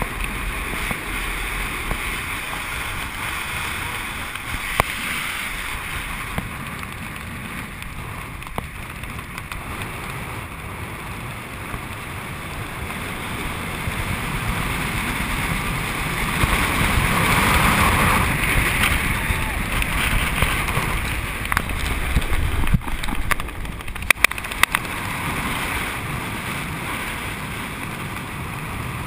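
Wind rushing over an action camera's microphone during a parachute descent under canopy. Its clothing rubs against the camera, and there are a few sharp knocks, most of them near the end.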